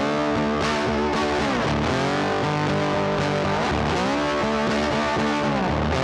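Background music led by guitar, with sustained notes that bend in pitch every couple of seconds.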